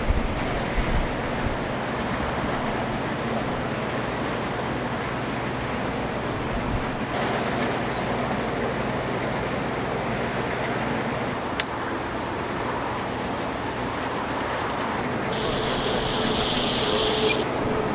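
Steady rushing noise of strong wind and jet airliner engines during takeoff, with a faint tone joining in near the end.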